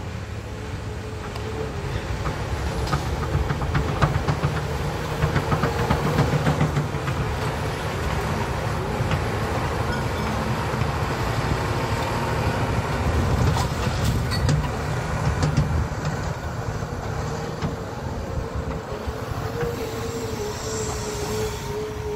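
Heavy demolition machinery working: a steady engine rumble with a constant whine over it, and repeated clatter and cracking of material being broken.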